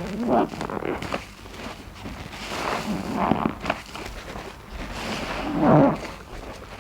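Wet grout sponges squeezed and rubbed in soapy water, giving three wavering squeaks about a second, three seconds and six seconds in, the last the loudest, over a wet squelching background.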